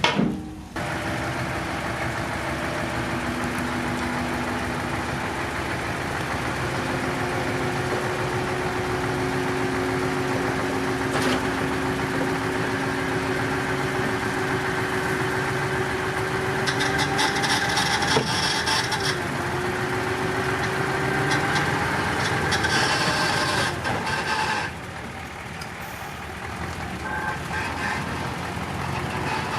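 Diesel engines of heavy earthmoving machinery running steadily, with a sudden drop in level about 25 seconds in.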